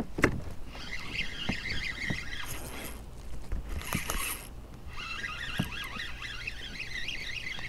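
Spinning reel being cranked to bring in a hooked fish: a squeaky, fluttering whirr in two spells with a pause in the middle, plus a few light knocks against the kayak.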